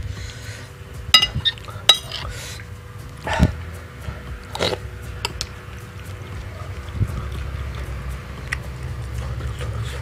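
Close-miked mukbang eating sounds: a metal spoon clinks against a glass bowl of noodle soup, with a short ring about a second in, then a second click. Mouth noises from eating the noodles follow, with scattered small clicks.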